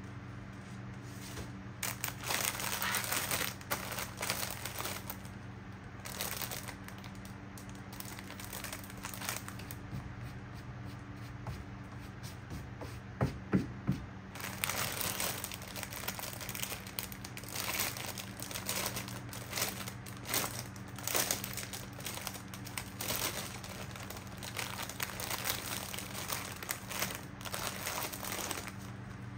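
Clear plastic bag crinkling in irregular bursts as hands press and shift it, with a couple of sharper knocks about halfway through. A steady low hum runs underneath.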